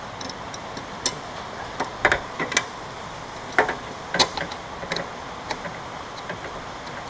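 A small metal hand tool clicking and scraping against an aluminium trim rail and the putty under it as it digs for the fasteners: a scattered series of short, sharp ticks over a steady background hiss.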